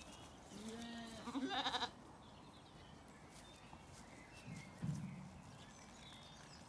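Zwartbles sheep bleating: a wavering bleat about a second and a half in, then a lower, shorter baa near five seconds.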